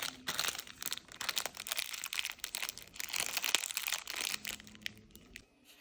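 Plastic packaging crinkling and crackling as it is handled and opened, a dense run of small crackles that thins out and stops near the end.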